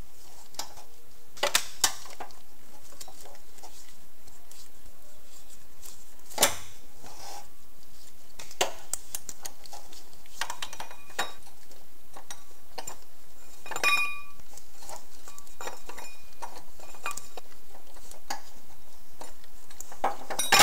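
Scattered metallic clinks and taps of hand tools and bolts while the water pump pulley bolts and pulley are taken off, a few seconds apart; one clink about two-thirds of the way through rings briefly, and a louder knock comes at the very end.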